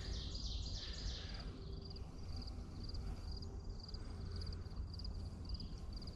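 Insect chirping outdoors, short trilled chirps at one high pitch about twice a second, with a bird singing a quick run of high notes in the first second or so; a low steady rumble underneath.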